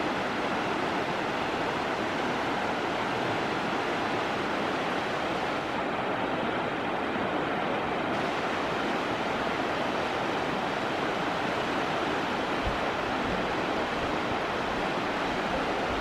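Shallow river rapids rushing steadily over rocks.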